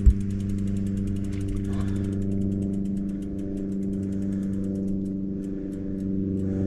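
A small motor running at a steady pitch with a fast, even pulse, and one sharp knock right at the start.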